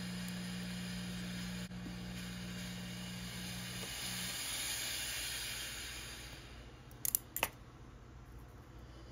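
Steam hissing steadily from a steamer over a low hum, then fading away about six seconds in. Two sharp clicks follow soon after.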